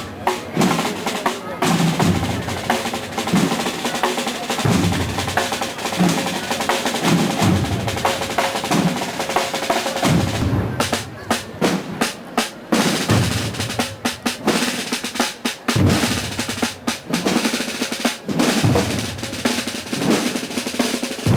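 Holy Week procession drum band: snare drums playing continuous rolls over bass drum beats about once a second.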